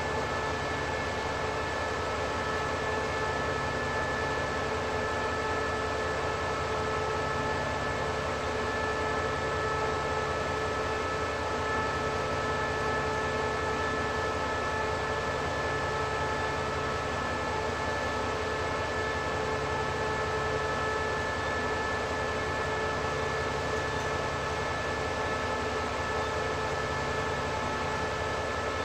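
State Railway of Thailand GE diesel-electric locomotive idling at a standstill: a steady engine hum with several constant high whining tones held over it.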